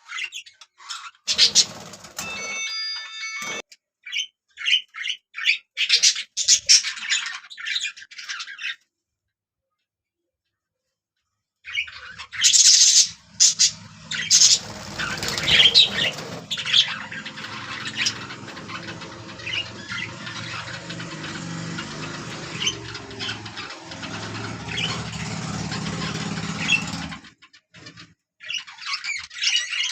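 Budgerigars chirping and warbling in quick, overlapping calls, cut by a couple of seconds of silence about nine seconds in and a shorter one near the end.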